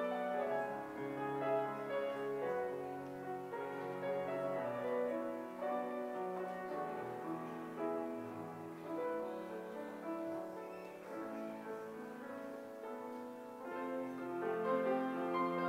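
Instrumental piano music, notes and chords moving steadily without a break.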